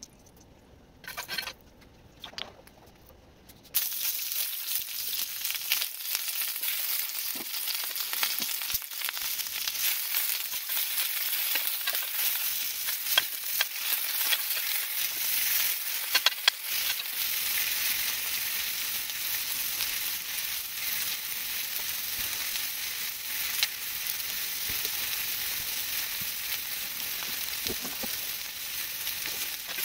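Sliced onions, green peppers and tomatoes sizzling in hot oil in a cast iron skillet, with a spoon stirring through them. It is quiet at first, and the sizzling starts suddenly about four seconds in as the vegetables go into the pan, then keeps up a steady hiss with scattered crackles.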